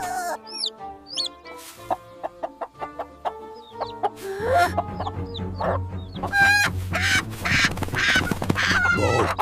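Cartoon background music with chicken sounds over it: short high chick peeps and hen clucking. The music is light and plucked at first and fills out with a bass line about four and a half seconds in.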